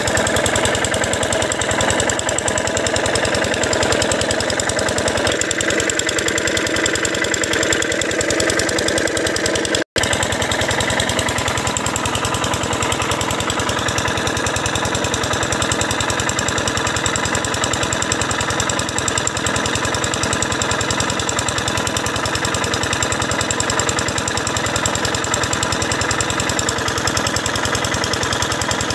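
Irrigation pump engine running steadily with a rapid, even knock, watering a paddy field. The sound drops out for an instant about ten seconds in.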